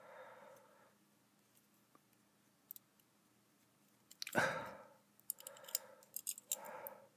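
Quiet clicks and light taps of hands handling a small action figure and a tube of glue. A louder short rush of noise comes a little past halfway, followed by a cluster of small clicks and several softer short noises.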